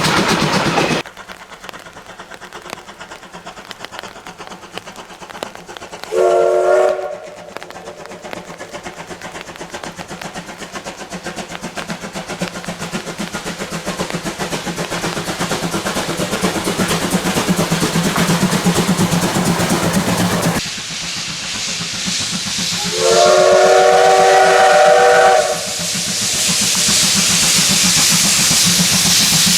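Steam locomotive whistle sounding twice over the running noise of the train on the rails: a short toot about six seconds in and a longer blast of about two and a half seconds later on.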